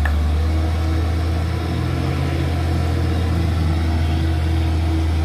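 Hino diesel truck engine straining up a steep climb, a steady low drone. The truck is nearly out of power on the grade.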